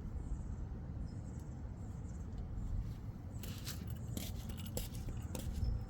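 Brake caliper parts being handled while the rubber slide-pin boot is fitted: a steady low rumble, then a few short scrapes and clicks from about three and a half seconds in.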